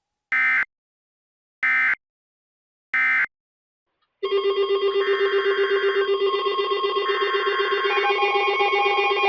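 Three short bursts of EAS/SAME digital data tones, the End of Message signal that closes a NOAA Weather Radio warning, about a second apart. About four seconds in, a steady electronic drone starts with a fast pulse and upper notes that change about once a second.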